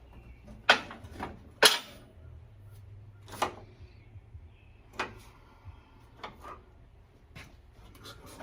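A series of separate sharp knocks and clanks from hand tools and engine parts being handled during engine teardown. Two loud ones come in the first two seconds, then softer ones every second or two.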